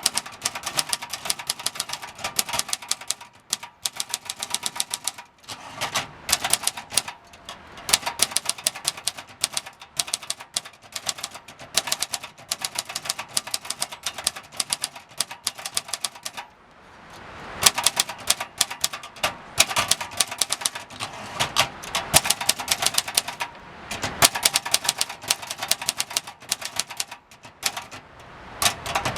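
1969 Brillant Junior manual typewriter being typed on: rapid runs of key strikes clacking, with short pauses between runs. The machine's mechanism is completely worn out.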